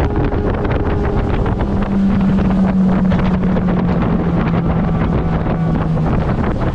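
Outboard motor driving a small fishing boat along at speed, a steady drone whose pitch eases down a little in the last couple of seconds, with wind buffeting the microphone.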